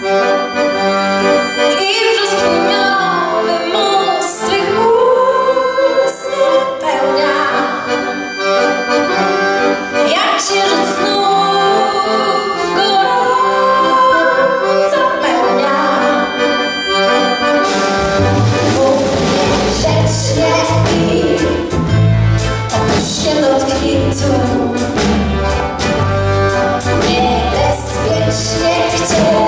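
Live band music led by piano accordion, with acoustic guitar. A bass and a steady drum beat come in about eighteen seconds in.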